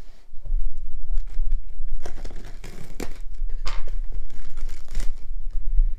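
Plastic courier mailer bag crinkling and rustling as it is handled and worked at with a small knife, in uneven scratchy bursts over a low rumble of the phone being handled.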